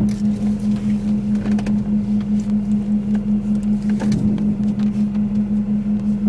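A steady low hum, pulsing about four times a second, with a few faint knocks over it.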